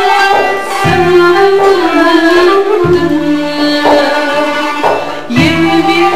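Instrumental music: a held melody line stepping from note to note over low bass notes that come in about every two seconds.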